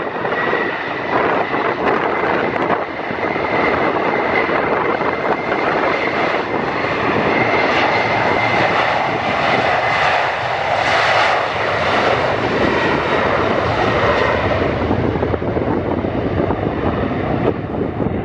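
Boeing 737's twin jet engines at departure power as it passes, a loud steady rush with a high whine, strongest about ten to twelve seconds in and then fading.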